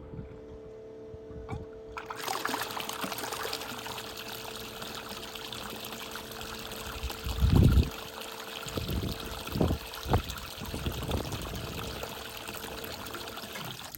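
Holding-tank pump-out: an electric pump hums steadily while, from about two seconds in, test water gushes out in a steady rush that stops near the end. Several deep gurgling surges break through the flow, the loudest about halfway.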